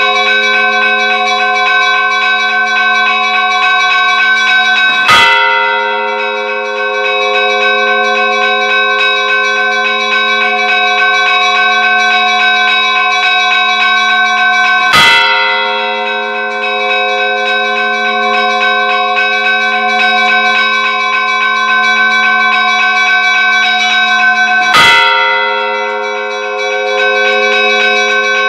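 Church bells ringing: several bells sounding together in a steady, sustained ring, with a heavy new stroke about every ten seconds, three times.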